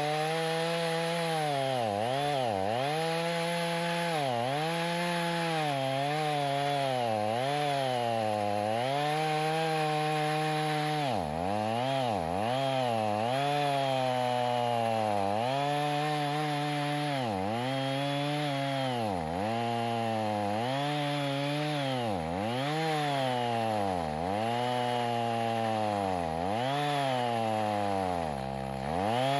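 Two-stroke chainsaw running at high revs while cutting post oak, the engine note dipping sharply and recovering every second or two. The saw struggles in the cut on a chain that was sharpened in a rush.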